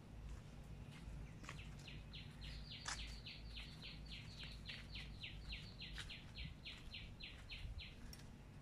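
A bird calling a long run of rapid, repeated notes, about four a second. The run starts about a second and a half in and stops shortly before the end.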